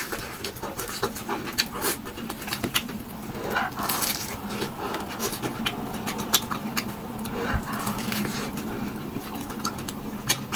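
Close-miked chewing of crispy fried flatbread, with many sharp crunches and crackles and a breathy puff of breath every few seconds.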